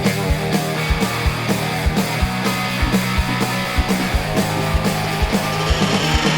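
Rock background music with a steady driving drum beat and guitar.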